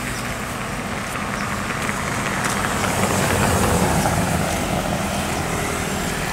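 Large bus engine running as the bus drives by, growing a little louder around the middle and easing off toward the end.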